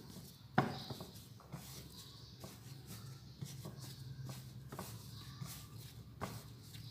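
A ball of bread dough handled on a floured board: one sharp knock about half a second in, then faint scattered taps and rubbing as it is set down and pressed flat by hand, over a low steady hum.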